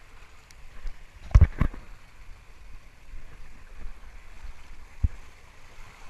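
A rider sliding down an open water-slide flume: a steady rush of water and air against the camera. There are two loud thumps about a second and a half in and another near five seconds.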